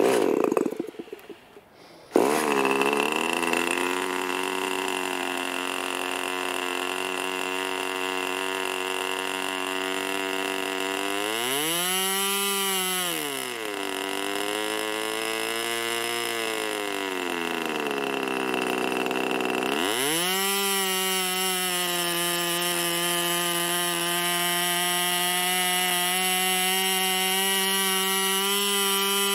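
Irvine 20 ABC two-stroke glow engine with a 9x5 propeller, spun by an electric starter for about two seconds before it catches and runs. Its speed rises and falls about ten seconds later, then climbs near the end and holds steady and higher. Freshly fitted with new bearings and tuned, it is running sweet.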